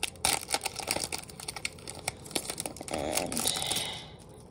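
Plastic wrapping crinkling and crackling in quick small bursts as trading cards are handled and pulled from their packaging, with a louder stretch of rustling about three seconds in.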